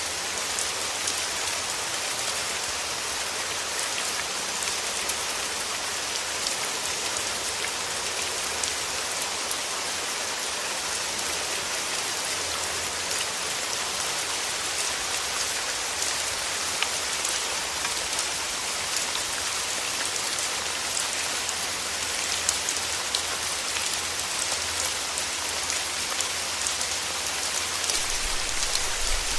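Steady rain falling, an even hiss dotted with the patter of individual drops. A low rumble of thunder starts to build near the end.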